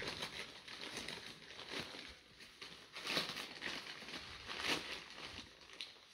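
Puppies shifting about on newspaper in their bed, the paper rustling and crinkling in irregular soft bursts, loudest about three seconds in and again just before five seconds.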